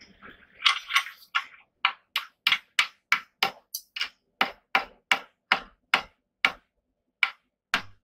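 Hand hammer striking a red-hot steel bar clamped in a bench vise: a steady run of sharp blows, about three a second, with a brief pause near the end.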